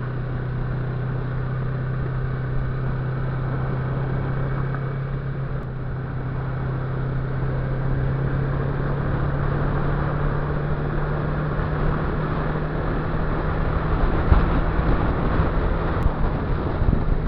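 Motorcycle engine running steadily at cruising speed, its low hum rising a little in pitch about six seconds in and then holding, with wind rushing over the helmet-mounted microphone.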